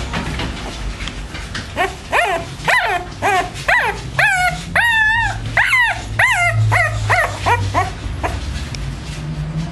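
A 13-day-old boxer puppy crying while held: a quick run of short, high squealing cries, most falling in pitch, with one longer held cry about five seconds in.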